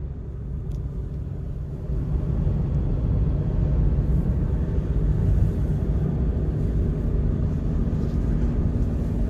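Steady low road and engine rumble inside a moving car's cabin, getting louder about two seconds in.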